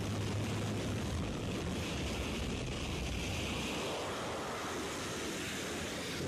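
Steady rushing noise with a low hum underneath, like wind or an aircraft in flight, swelling slightly in the middle.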